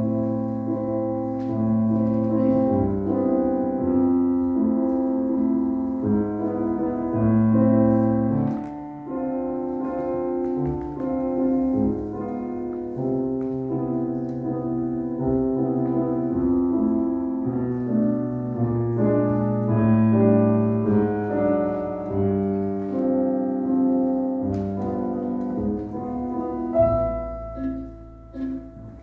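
Instrumental tango music with piano, sustained chords over a bass line, dipping quieter near the end.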